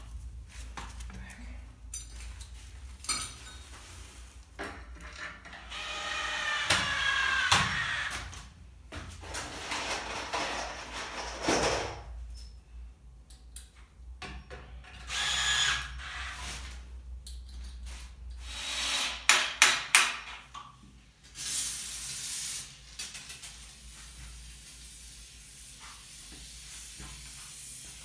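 Cordless drill-driver run in several short bursts to drive self-tapping press-washer screws into timber floor joists and steel angle brackets, its motor whine rising as it spins up about seven seconds in. Knocks and clatter of handling come between the runs, with a cluster of sharp knocks about twenty seconds in.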